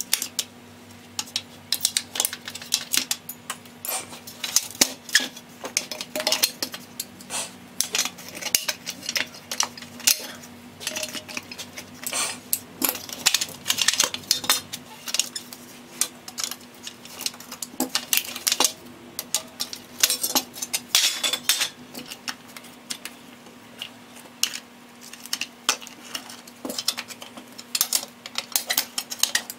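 Steel scissor-jack parts and hand tools clinking and clanking in frequent, irregular knocks as the jacks are taken apart with a wrench and pliers. A steady low hum runs underneath.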